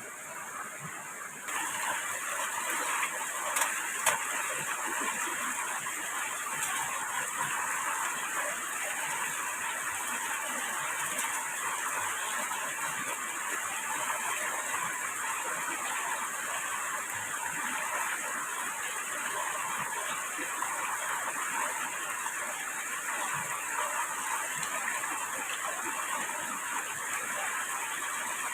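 Steady hiss of heavy rain, getting louder about a second and a half in, with a couple of sharp knocks a few seconds in.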